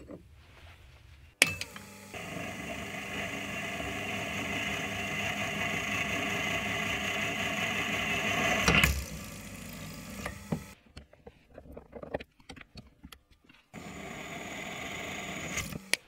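A benchtop drilling machine running while a small twist drill cross-drills a hole in the wall of a metal sleeve. It starts suddenly, runs steadily and grows slightly louder, then stops about nine seconds in, with a second shorter run near the end.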